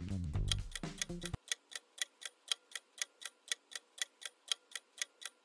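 Quiz countdown timer sound effect: a clock ticking in rapid, even ticks, about five a second. Background music under it cuts off about a second and a half in.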